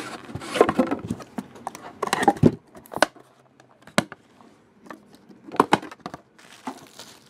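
Cardboard trading-card boxes being handled and set down on a tabletop: scattered knocks, taps and short scrapes, with one sharp tap about four seconds in.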